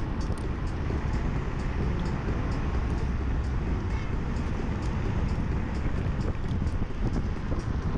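Steady wind noise buffeting an action camera's microphone, mixed with the road rumble of an electric scooter being ridden along the street.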